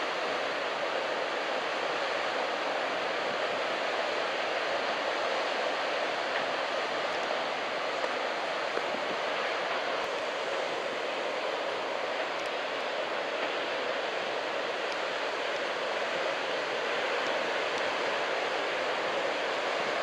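Steady rushing noise of large ocean waves breaking, with strong wind.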